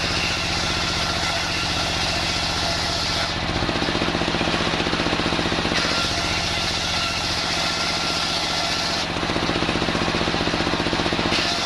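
Homemade engine-driven circular sawmill running steadily while the blade cuts timber. The high cutting noise stops for a couple of seconds about three seconds in and again about nine seconds in, while the engine keeps running.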